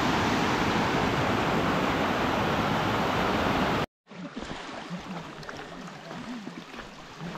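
Snowmelt stream rushing: a steady, loud hiss of running water. Almost four seconds in it cuts off abruptly, and a much quieter background follows.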